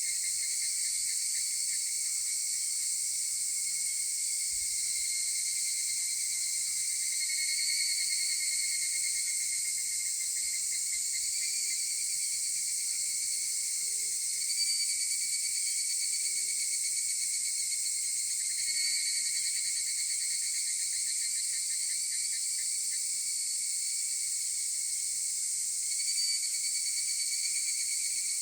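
A chorus of higurashi (evening cicadas, Tanna japonensis) calling at dawn. Overlapping pulsed 'kana-kana' trills swell and fade every few seconds over a steady high hiss from the chorus.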